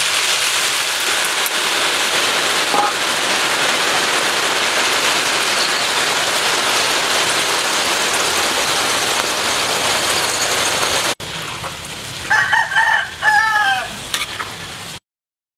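Grasshoppers deep-frying in a wok of hot oil: a loud, steady sizzle. After a sudden cut about 11 s in, the sound is quieter and a rooster crows, then the sound cuts off to silence.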